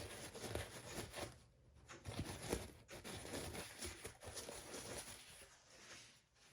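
Faint, irregular rustling and light taps of a wipe dabbing excess oil off the oiled felt and bushing of a bathroom exhaust fan motor.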